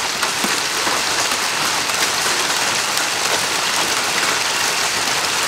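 Heavy storm rain pouring onto pavement and parked cars: a steady, even hiss.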